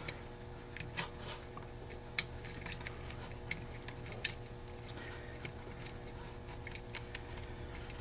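Scattered light metallic clicks and taps of small carburetor parts being handled as the accelerator pump lever is slid onto its shaft on a Rochester 2G carburetor. The sharpest ticks come about one, two and four seconds in.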